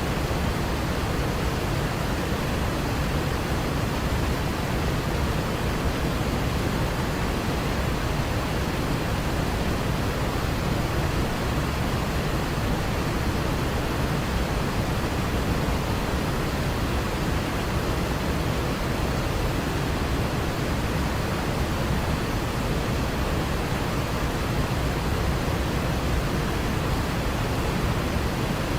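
A waterfall's steady, unbroken rush of falling water.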